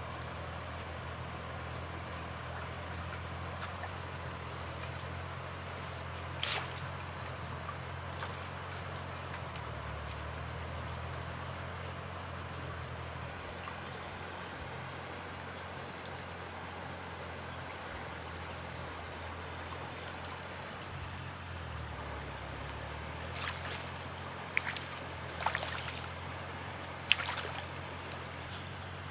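Small engine running steadily with a low hum, over a light wash of trickling water. There is one sharp splash or knock about a third of the way in, and several more near the end.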